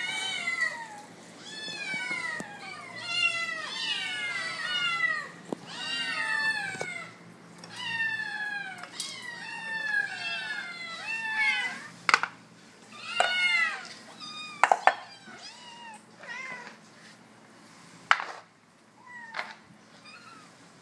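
Several 81-day-old Bengal kittens meowing over one another, each call falling in pitch: hungry kittens begging while their food is dished up. The calls thin out after about 14 seconds, and a few sharp clicks and knocks come through.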